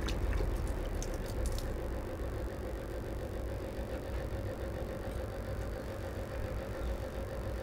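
A few small metallic clicks in the first second or so as the cover-plate screws come off a marine diesel's bronze raw water pump and the plate is worked loose, over a steady low rumble.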